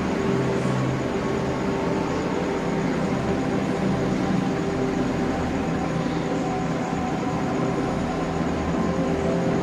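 Steady mechanical hum with several held tones over a low rushing noise, unchanged throughout.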